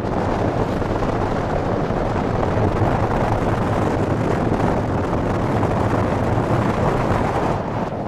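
Steady rush of wind and road noise on the microphone of a moving car, a loud even rumble with no breaks.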